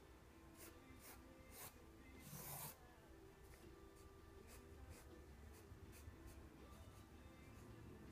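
Graphite pencil scratching on sketchbook paper in short, faint strokes, about two a second, with one longer, louder stroke about two and a half seconds in, as feather lines are drawn.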